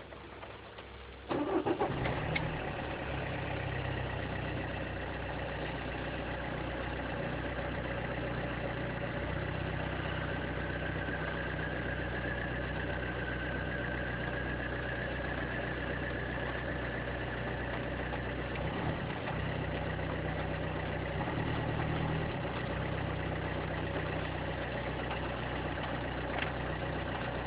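Opel Corsa D 1.3 CDTI diesel engine cold-starting about a second in, a short crank that catches at once, then idling steadily. A faint thin tone runs above the engine note.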